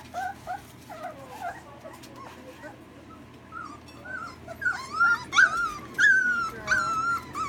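Several three-week-old puppies whining and yelping, short high overlapping cries rising and falling in pitch, getting louder and longer about two-thirds of the way through.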